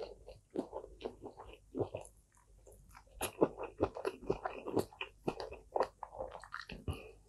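Close-miked chewing of crispy pork and fried rice, with a run of crackly crunches that is densest in the middle. Near the end another bite is taken from a piece of crispy pork.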